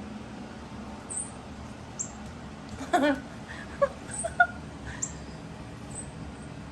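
Young Persian kittens mewing: scattered short, high squeaks and a few small mews, the loudest about three seconds in.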